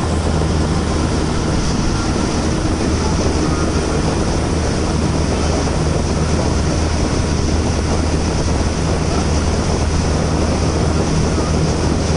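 Motorboat engine running steadily under way, heard on board: a constant low drone with an even rush of water and wind noise over it.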